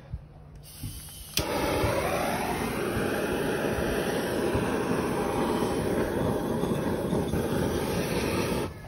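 Handheld butane blowtorch lighting with a click about a second in, then running with a steady rushing hiss as its flame plays on a charcoal briquette; it shuts off abruptly near the end.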